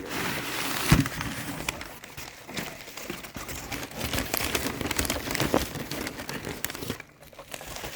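Packing paper rustling and crinkling as it is handled and pulled aside, with a sharp click about a second in. It goes quieter near the end.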